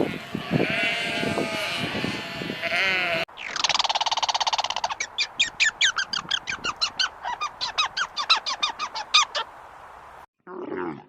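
Sheep bleating. Then, after a cut, a bird gives one long call followed by a fast run of short, sharp, high calls at about five a second.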